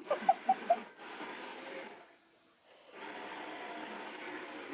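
Battery-powered toy train's motor whirring, cutting out for about a second midway and then starting again. A few short beeping tones come at the start.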